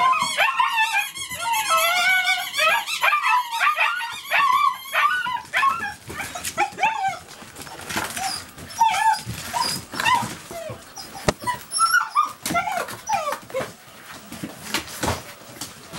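German shepherd puppies yipping and whining at play. Many squeaky yips overlap for the first five seconds, then scattered yips come among sharp clicks and knocks.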